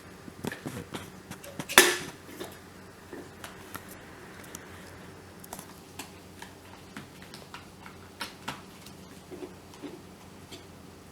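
Handle cover being set and pressed onto an electric travel kettle's body: scattered light clicks and taps, with one sharp knock about two seconds in.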